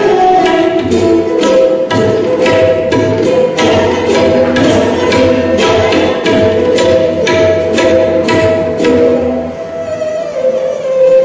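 Dilruba, a bowed Indian string instrument, playing a sustained gliding melody over drum accompaniment struck about two and a half times a second. The drum stops near the end, leaving the dilruba alone.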